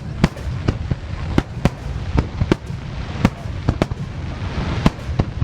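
Aerial fireworks bursting in a rapid barrage: sharp bangs about two or three a second over a continuous low rumble of shells going off.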